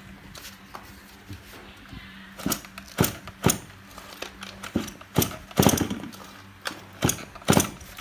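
Kawasaki TD24 two-stroke engine turned over by repeated pulls on its recoil starter, without starting: a string of short clattering pulls from about two and a half seconds in. The pull feels very heavy, which the seller takes for good compression.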